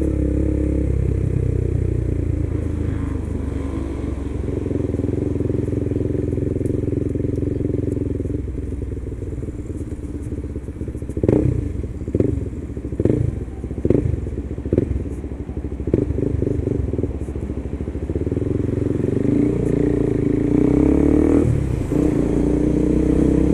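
KTM 390's single-cylinder engine running under a rider. It eases off in the middle, where there is a run of about seven short, sharp bursts roughly a second apart. It then accelerates with rising pitch and drops in pitch a couple of seconds before the end, at a gear change.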